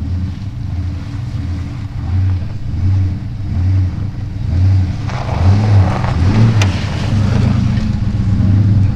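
Chevrolet Silverado pickup driving slowly through shoreline mud: a low engine rumble that throbs in even pulses, with a rushing tyre-and-mud noise joining about halfway through as it gets louder.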